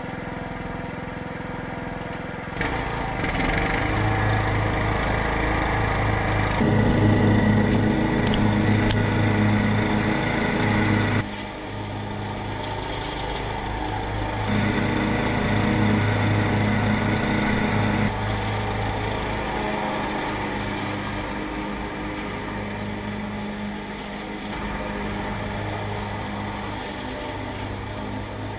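Cub Cadet XT1 Enduro riding mower's Briggs & Stratton engine running. It gets louder about two and a half seconds in as the mower pulls away, then rises and falls in level several times as it drives around.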